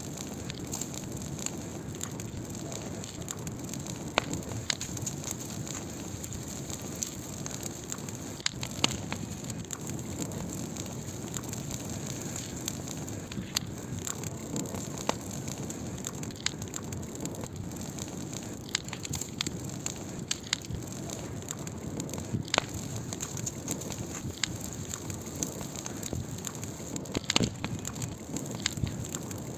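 Wood fire burning: a steady hiss with frequent irregular crackles and sharp pops, a few of them louder than the rest.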